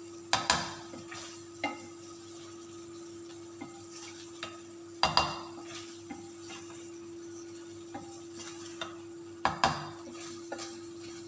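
Chicken and capsicum being stirred in a frying pan, the spatula knocking and scraping against the pan with three louder clatters about four to five seconds apart and lighter knocks between, over a faint sizzle. A steady hum runs underneath.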